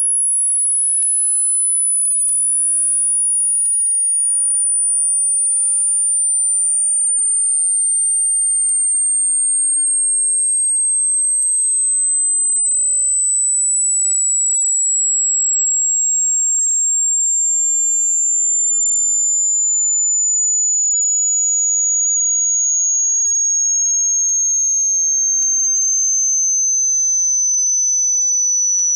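A single pure sine-wave test tone from a hearing test, very high and thin, gliding slowly and steadily lower in pitch.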